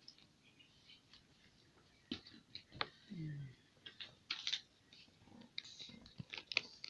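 Scattered small clicks, taps and rustles of close-up handling, thickening after about two seconds, with one brief low sound falling in pitch a little after three seconds.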